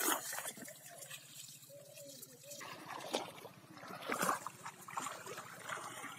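Shallow, muddy pond water splashing and sloshing in irregular strokes as hands and feet stir and dig into it.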